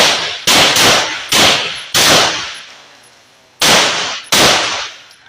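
Gunshots on a shooting range: six sharp reports in quick, uneven succession, each ringing out for about half a second. There is a gap of over a second before the last two.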